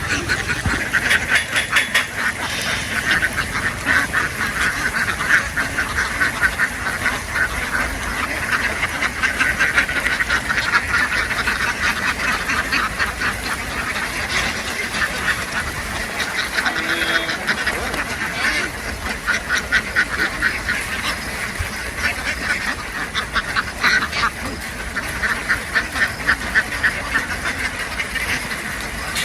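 A large flock of domestic ducks quacking continuously, many calls overlapping into a steady, dense din.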